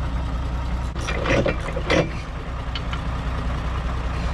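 Diesel tractor engine idling steadily, with a few short knocks or clanks about one and two seconds in.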